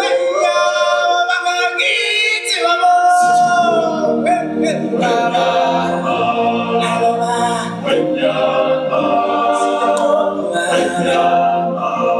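Singers in a live musical stage show holding long, sliding sung notes through microphones; about three seconds in, fuller voices and a deep low layer join.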